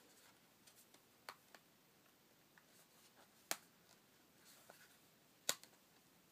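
Near silence broken by a few sharp little clicks, two of them louder and about two seconds apart, from hands working at the tablet's silicone case.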